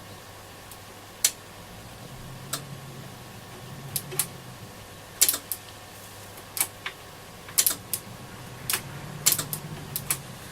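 Irregular sharp clicks and light taps, about a dozen, from small parts and a connection lead being handled on a transistor radio under repair, over a faint steady hum.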